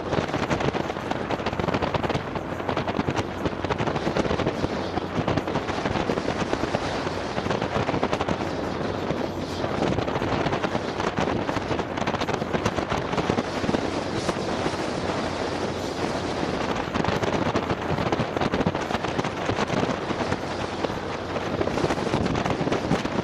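Wind buffeting the microphone of a camera on an open Polaris Slingshot as it is driven: a dense, rapid crackling rush with a steady low hum underneath.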